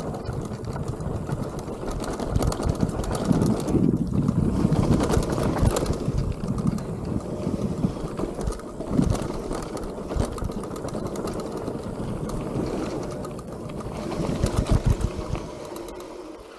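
Mountain bike rolling down a dirt trail: tyres on packed dirt and grit, with the bike rattling and knocking over bumps and wind buffeting the camera's microphone. It goes quieter near the end.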